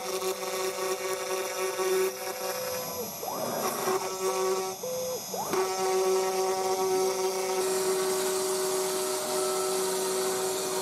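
DIY CNC router running a cut in pine with a 4 mm end mill: a steady machine whine over cutting noise. A couple of sweeping rises and falls in pitch come around the middle as the machine changes speed.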